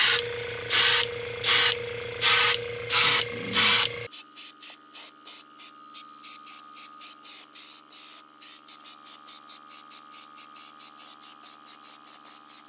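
Airbrush spraying in short hissing bursts with its compressor humming steadily. For about four seconds the bursts are loud and come roughly every 0.7 s. After an abrupt change they turn quieter and faster, about four a second, over a steady hum.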